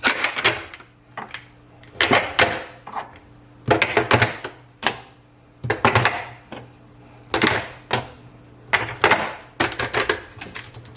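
Spice containers being set one after another into a drawer, clicking and clattering against each other, a short clatter about every one and a half to two seconds.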